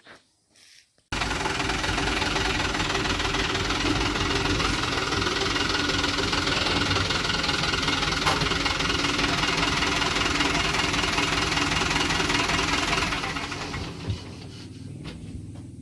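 An engine running steadily, starting abruptly about a second in and fading away over the last few seconds.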